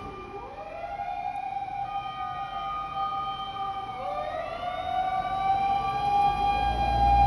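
Fire engine sirens on an emergency run: a siren winding up in pitch and holding, winding up again about four seconds in, over a steady higher siren tone. Near the end a truck engine rumble comes in and everything grows louder as the vehicle gets closer.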